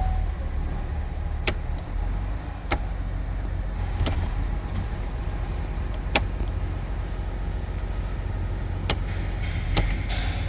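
GMC Sierra 1500 pickup's engine idling steadily, with about half a dozen sharp clicks at irregular intervals over it.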